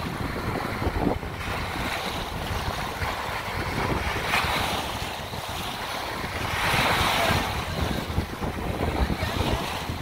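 Small waves washing onto a sandy beach, one breaking a little louder about two-thirds of the way through, with wind buffeting the microphone.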